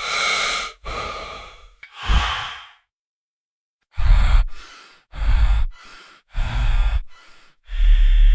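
A person breathing heavily in and out, in separate breaths. Three long breaths come first, then about a second of silence, then quicker breaths with a deep low rumble.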